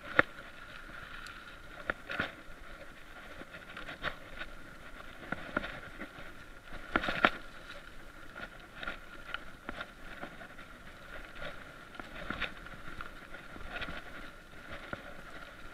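Mountain bike riding over a bumpy dirt forest trail, recorded on a chest-mounted action camera: a steady rolling noise with frequent short rattles and knocks as the bike jolts over the ground, the loudest knocks about two seconds and seven seconds in.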